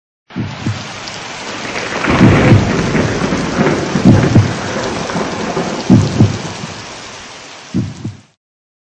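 Thunderstorm: steady rain hiss with deep rolls of thunder about every two seconds, fading toward the end and cutting off abruptly.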